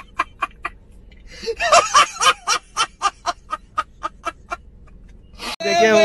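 Laughter in quick, evenly spaced ha-ha pulses, about five a second, with a denser burst of voices at about two seconds. It dies away after about four and a half seconds.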